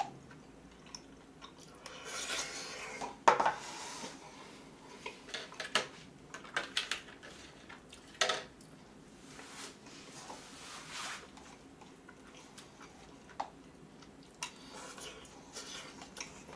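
Wooden utensil scraping and knocking in a paper instant-noodle cup as curry and rice are stirred and scooped, in scattered short scrapes and clicks.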